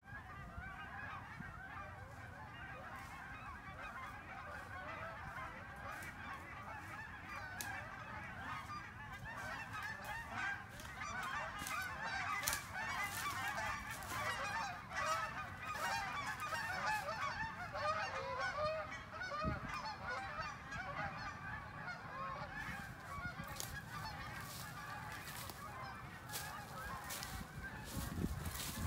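A flock of geese honking, many overlapping calls at once. Footsteps crunch through dry leaves and twigs, growing more frequent near the end.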